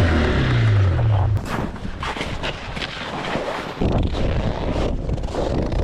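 Snowmobile engine running, dropping in pitch and shutting off about a second and a half in, followed by irregular crackles and thumps with a low rumble.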